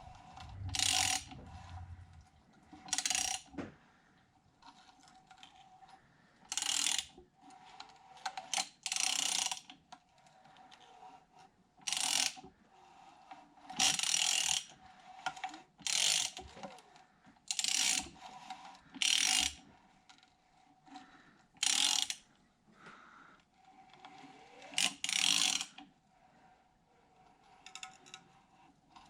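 Hand ratchet clicking in about a dozen short bursts at uneven intervals as the Kawasaki Mojave 250's crankshaft is turned over by hand, checking valve-to-piston clearance after cam timing.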